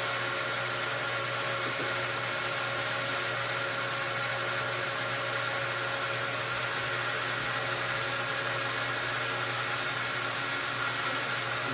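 Metal lathe running steadily, its motor humming evenly, while the cutting tool faces the end of a piston and is fed in toward the center.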